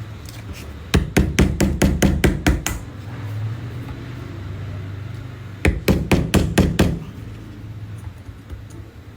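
Two quick runs of hammer blows, about five strikes a second, knocking the worn old bearing sleeve out of a Mercedes M274 alternator.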